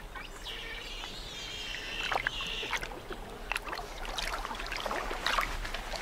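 Giant otter pups splashing in shallow water, with a high, drawn-out whining call lasting about two seconds in the first half, followed by a run of short splashes.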